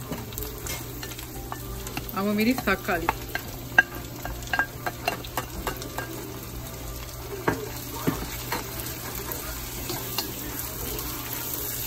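Sizzling oil in a pan being stirred, with frequent scrapes and taps of the utensil on the pan. This is a tempering of curry leaves and aromatics before the vegetables go in. A short wavering pitched squeak comes about two and a half seconds in.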